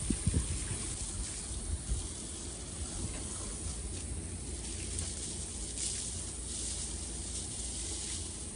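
Water spraying from a garden hose onto a tractor and fertilizer spreader, rinsing off fertilizer residue, a steady hiss over a low rumble.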